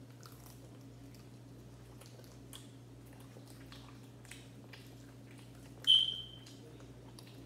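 Quiet chewing and mouth noises of people eating chicken legs, with a low steady hum underneath. About six seconds in comes a short, sharp, high-pitched squeak, the loudest sound, fading within half a second.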